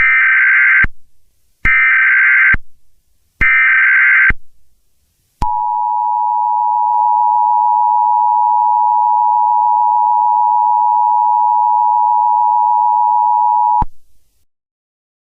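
Emergency Alert System SAME header: three identical short bursts of warbling digital data, about a second apart. Then the EAS two-tone attention signal, a steady dual tone held about eight and a half seconds and cut off sharply, marking the start of an emergency alert.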